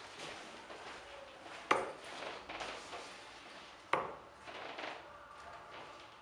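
Steel-tip darts thudding into a Bull's Focus II bristle dartboard: two sharp hits about two seconds apart, and a third right at the end.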